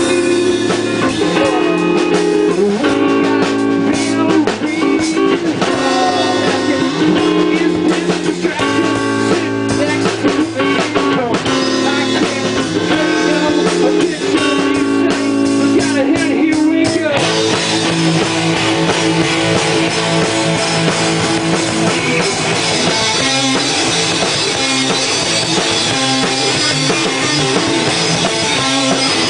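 Rock band playing live in rehearsal: guitar chords over a drum kit. About seventeen seconds in the playing turns fuller and brighter, with more cymbal wash.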